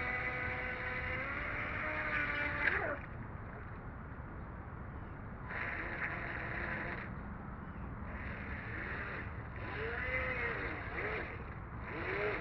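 WLToys WL911 RC racing boat's electric motor whining at speed, its pitch dropping as it winds down about three seconds in. After a pause it comes back in short bursts of throttle, the pitch rising and falling with each burst, over a low rumble.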